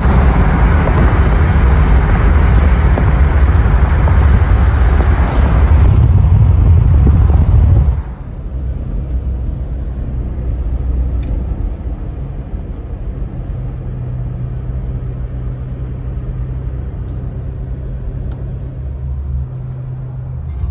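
Road and wind noise inside a moving car: a loud rushing noise for about the first eight seconds, then, after a sudden drop, a quieter steady low rumble of tyres and engine.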